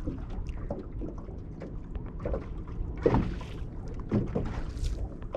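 Steady low rumble of a fishing boat on the water, with scattered light knocks and clicks and a brief noisy swell about three seconds in.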